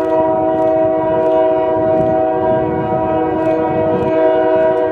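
Multi-note locomotive air horn on the lead EMD SD40-2, CP 6018, held as one steady chord, over the low rumble of the approaching freight train, with regular clicks underneath.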